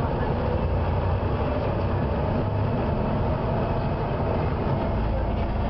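Volvo B7TL bus running on the move: a steady engine and road drone with thin, faint whining tones over it. The uploader's tags put the bus's screech down to a squealing fan belt.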